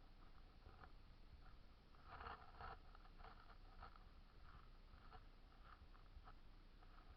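Near silence with faint, scattered clicks and rustling, a little louder about two seconds in.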